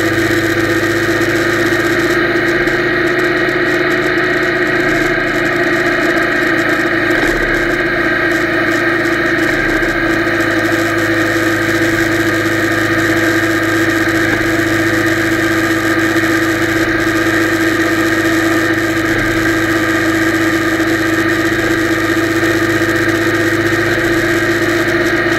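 Yamaha TDM motorcycle's parallel-twin engine running at a steady cruising speed, its pitch holding constant, heard through an action camera's waterproof housing along with the rush of riding.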